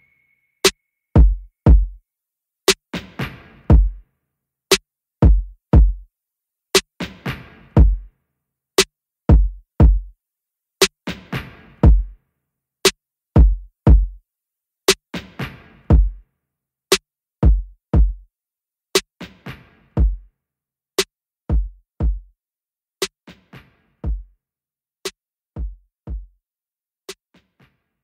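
Background music: a sparse electronic drum beat of deep kick drums, sharp clicks and snare hits. It fades out over the last few seconds.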